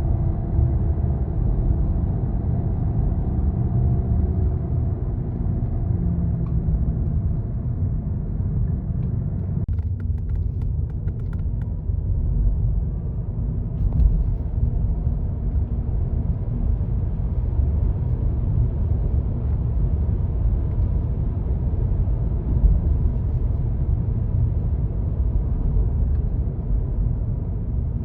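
Electric car driving, with a steady low rumble and a faint hum from a bad wheel bearing; the hum's pitch drifts down over the first few seconds. A short run of clicks comes about ten seconds in.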